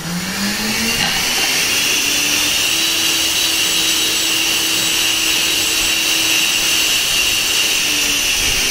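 3D-printed 80 mm electric ducted fan with a 12-blade propeller, driven by a Racerstar BR2207S 2500 Kv brushless motor, spooling up in the first moment and then running at high speed with a loud, steady rushing whine. It begins to ease off right at the end.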